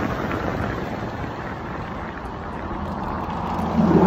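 Wind rushing over a handheld phone's microphone while riding a bicycle. A low steady hum swells and gets louder near the end.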